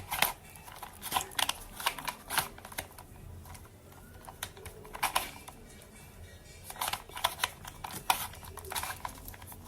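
Plastic Rubik's Cube being twisted rapidly by hand, its layers clicking and clacking in quick irregular runs, with a quieter pause about halfway through.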